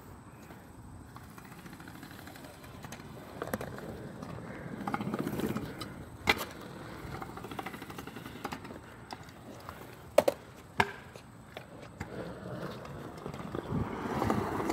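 Stunt scooter wheels rolling over concrete, with sharp clacks of the scooter hitting the ground, one about six seconds in and two close together around ten seconds in.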